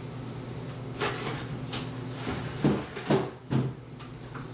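Kitchen clatter: about five knocks and bumps of cupboards, dishes or utensils being handled, the loudest three close together in the second half, over a steady low hum.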